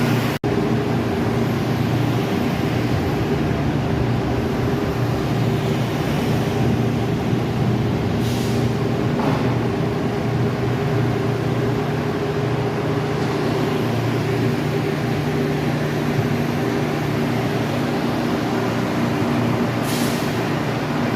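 Heavy diesel engine of rail equipment running steadily at a constant speed, with two short hisses, one near the middle and one near the end.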